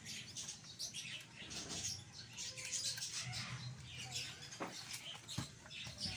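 Small birds chirping repeatedly in the background, with two sharp clicks near the end.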